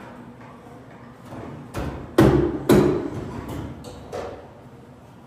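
Two loud thuds about half a second apart, with a lighter knock just before them and a few fainter knocks after.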